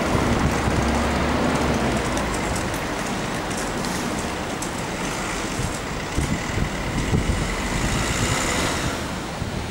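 Road traffic noise: the steady rumble of passing vehicles, with an engine hum strongest in the first two seconds that then eases off.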